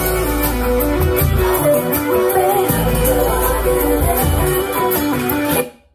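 Music with a beat and a prominent bass line, played through a portable Bluetooth speaker at maximum volume and picked up in the room; it cuts off abruptly near the end.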